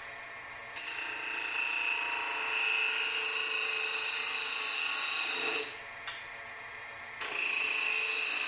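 A small motor-driven tool running with a steady high whine. It starts about a second in, stops after about five seconds, and starts again a second and a half later.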